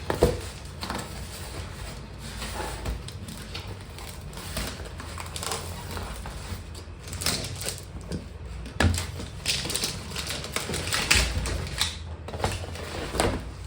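Cardboard packaging being handled and opened: irregular crinkling, scraping and small knocks, over a steady low rumble.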